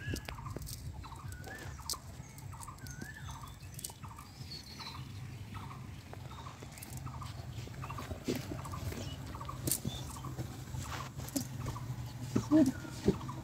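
Short animal calls repeating about twice a second over a low steady hum, with a couple of louder thumps near the end.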